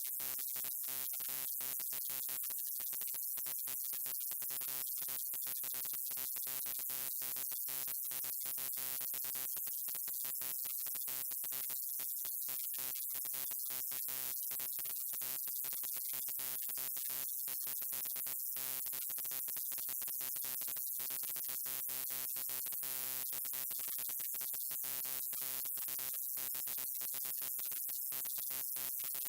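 Neon light buzzing: a steady electrical hum with many overtones over a bright hiss, broken up by quick, irregular flickers.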